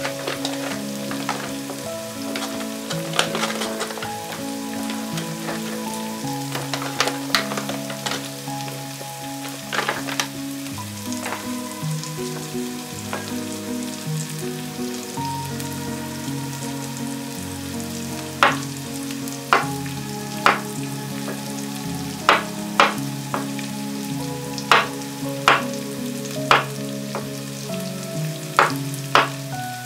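Chef's knife slicing chestnuts on a bamboo cutting board: sharp taps of the blade on the wood, louder and more regular in the second half. In the first several seconds a crinkly chestnut packet rustles as it is opened and emptied. Soft background music with held notes plays underneath.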